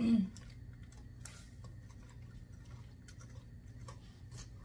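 Wire whisk stirring fudge base of butter, evaporated milk and not yet dissolved sugar in a saucepan, making light, scattered ticks and scrapes against the pan over a faint steady hum.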